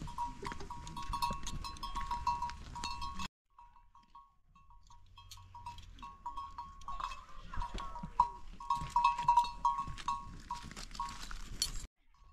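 Small livestock bells on goats and sheep clinking irregularly, quick runs of short rings at one pitch. The sound cuts out abruptly a little over three seconds in, then returns.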